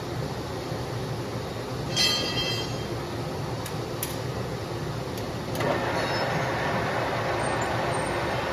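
Metal lathe running with a tool cutting a steel bearing part: a steady machine hum and cutting noise, a brief ringing metallic squeal about two seconds in, and the cutting noise growing louder and brighter a little past halfway.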